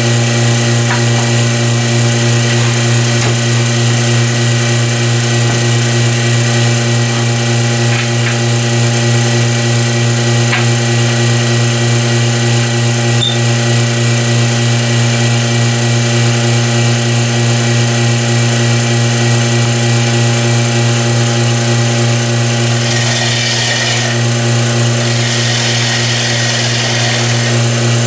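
Vacuum pump running with a steady hum while a wooden bowl spins on the lathe's vacuum chuck. Near the end a bowl gouge cuts the bowl's foot in two short hissing passes.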